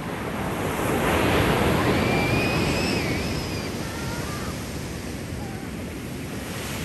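Ocean surf: a wave swells to a peak about a second in and washes out over the next few seconds, over a steady wash of surf and wind on the microphone.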